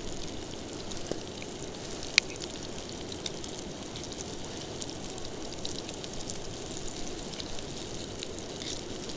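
Grayling fish cutlets sizzling and crackling in oil in a frying pan over a small camp stove, with one sharp click about two seconds in.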